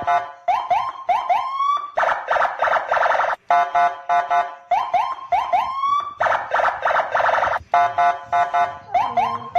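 Police escort car's electronic siren cycling through its pattern: a harsh, rapidly pulsing tone, then a run of quick rising whoops ending in a longer rise, repeating about every four seconds.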